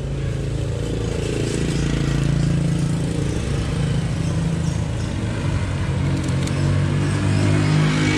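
An engine running steadily with a low hum whose pitch wavers a little, growing slightly louder near the end.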